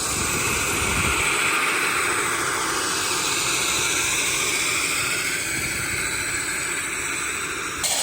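Aircraft engines running on the ground just after landing: a steady loud hiss with an engine tone drifting slowly in pitch. The sound changes abruptly near the end.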